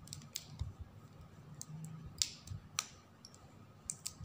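Rubber band stretched and wound tight around a bundle of gathered mulberry paper, giving a string of small, sharp, irregular snaps and crinkles with a few soft handling thumps.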